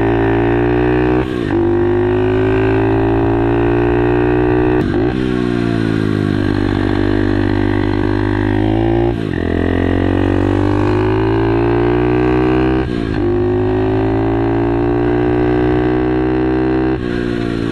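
SSR 110 pit bike's small single-cylinder four-stroke engine running under throttle. Its pitch slowly rises, then breaks off sharply and starts lower again about every four seconds.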